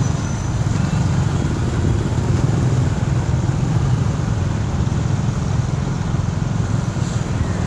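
Steady low rumble of riding in city traffic, heard from a moving vehicle: engine and road noise mixed with wind on the microphone.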